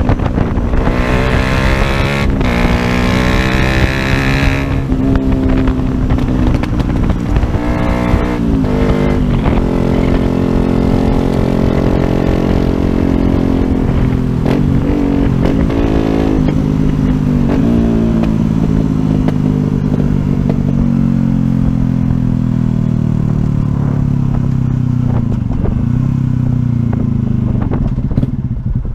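Yamaha YZF-R125's single-cylinder 125 cc four-stroke engine running under the rider. Its pitch climbs and drops back at several gear changes, then sinks slowly over the last ten seconds or so as the bike slows down.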